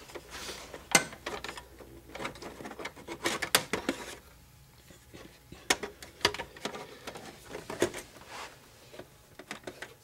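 CD-ROM drive being slid into the metal drive bay of a Dell Optiplex 755 case: scattered clicks and short scrapes of metal on metal as it is pushed into place, the sharpest click about a second in.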